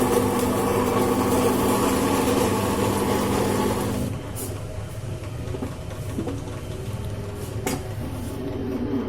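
Table-top fully automatic cappuccino machine running with a steady mechanical hum that stops about four seconds in. Quieter light clicks and knocks from the machine follow, with one sharp click near the end.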